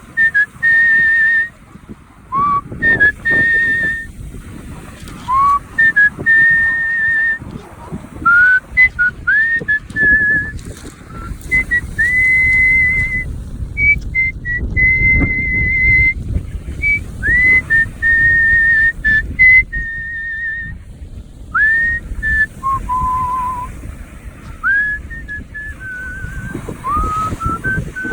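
A person whistling a melody by mouth in the art-whistling style: a single pure line of held notes with vibrato, many of them scooped up into from below, in phrases with short breaks. A low rumbling noise runs underneath.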